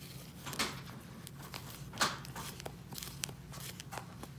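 Hands working a small handmade doll close to the microphone: scattered soft rustles and clicks, the loudest about two seconds in, over a steady low hum.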